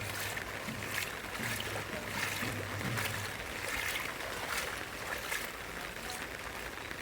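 Steady rain falling, with regular footsteps on a wet path about every second. A low hum underneath fades out about halfway through.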